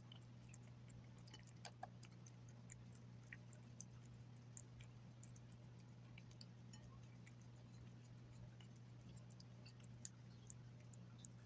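A cat licking and chewing wet food from a glass plate: faint, irregular small wet clicks and smacks, over a steady low hum.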